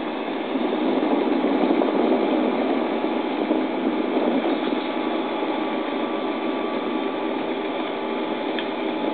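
Steady rushing of wind on a camcorder microphone high up under a parasail, with a faint steady hum, heard through a small TV speaker that strips the deep rumble and the highs.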